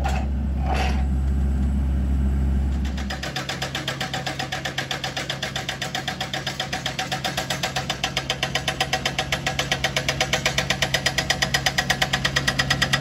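Hydraulic rock hammer on a John Deere 60G mini excavator pounding hard limestone: a fast, even hammering of about eight blows a second over the excavator's engine running. For the first three seconds there is only a low rumble with a couple of knocks; the hammering starts about three seconds in and grows louder toward the end.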